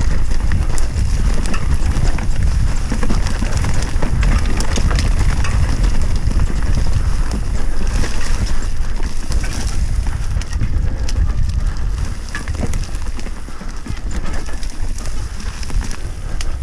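Wind buffeting the microphone during a fast mountain-bike descent, with scattered clicks and knocks from the bike rattling over rough, muddy ground.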